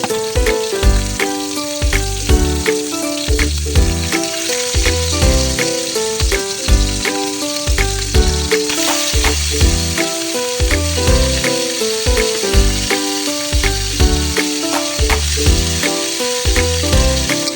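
Background music with a steady beat and bass line, over food frying and sizzling with a constant hiss.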